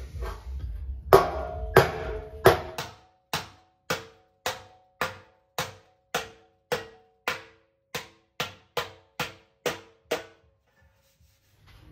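Steel dolly striking the back of a classic Mini's steel front wing to lift out a dent, about two blows a second. Each blow makes the panel ring briefly. The blows are kept light so as not to stretch metal that the impact has already stretched, and the first few are the loudest.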